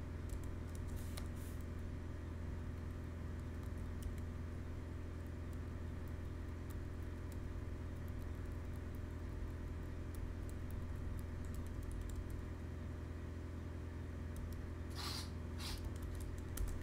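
Typing on a computer keyboard: scattered key clicks, with two louder strokes near the end, over a steady low hum.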